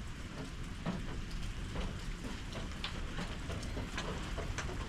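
Steady rain falling during a thunderstorm, with scattered ticks of drops landing close by.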